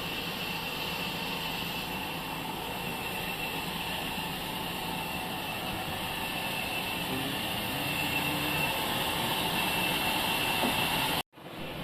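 Sawmill machinery running steadily, a continuous mechanical noise with a steady high whine over a low hum. The sound cuts out abruptly for a moment near the end.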